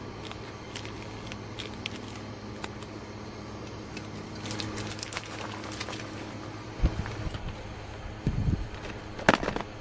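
Light clicks and the rustle of a paper drip-coffee filter bag being unfolded and hooked onto a glass mug, over a steady low hum. After that come a few dull thuds and knocks, the loudest near the end.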